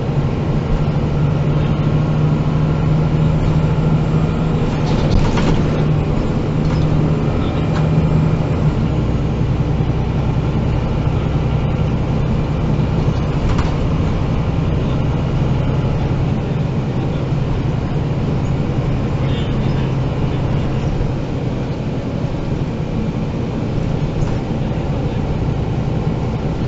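MAN NG 313 articulated city bus driving, heard from on board: a steady engine drone whose pitch drops slightly about eight seconds in, with a couple of short knocks from the body.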